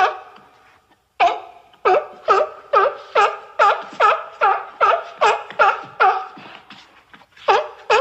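Sea lion barking in a rapid run of short, harsh barks, about two or three a second, each dipping in pitch, with short pauses about a second in and near the end.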